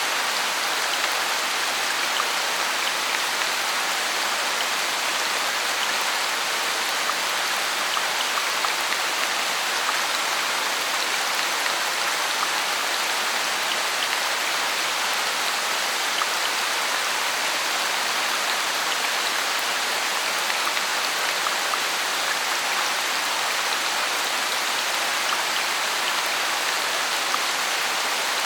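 Heavy rain falling steadily, an even hiss dotted with many small drip and drop ticks.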